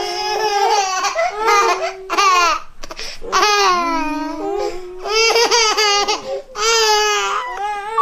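A baby crying in a string of high-pitched, quavering wails, each about half a second to a second long, with short gasps between them.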